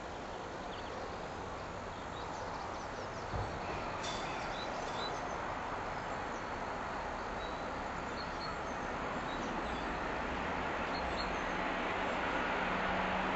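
An approaching train, the Peppercorn A1 Pacific steam locomotive 60163 Tornado, growing slowly louder as it nears. Birds chirp a few times, and a low steady tone comes in near the end.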